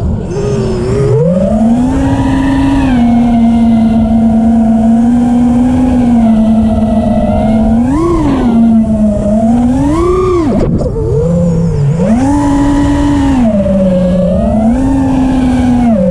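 FPV quadcopter's electric motors and propellers whining, the pitch rising and falling as the throttle changes through banking turns, with a sharp dip near the middle, over heavy wind rumble on the on-board microphone.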